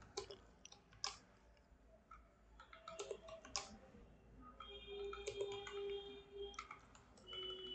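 Faint, scattered keystrokes of a computer keyboard being typed on, with a faint held tone for a couple of seconds past the middle.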